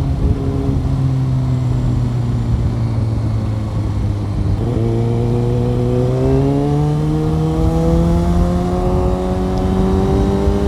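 Kawasaki ZX-6R inline-four sport bike engine under way, holding a steady note, then with the throttle opened about halfway through its pitch climbs steadily as the bike accelerates.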